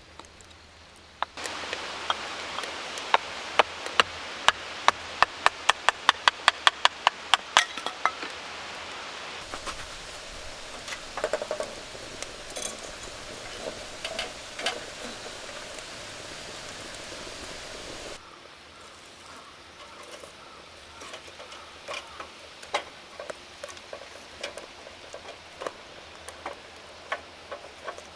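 Wood fire burning in a small tabletop wood stove, hissing and crackling. A quick run of sharp snaps comes in the first few seconds. Later it is quieter, with scattered crackles.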